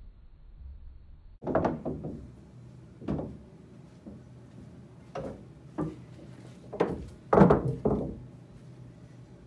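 A series of about eight irregular knocks and thuds with a short ring after each. They come in a loose cluster near the start and another near the end, and the loudest is about seven and a half seconds in.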